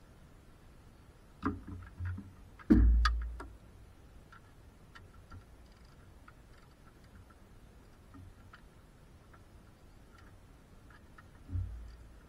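A few sharp knocks and clicks, the loudest a heavy thud about three seconds in, then faint scattered ticks and one more knock near the end, like tools or parts being handled.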